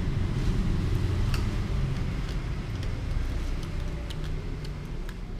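A steady low rumble, with a few faint light clicks and crinkles as a foil-lined bag of Garuda Pilus snack balls is handled.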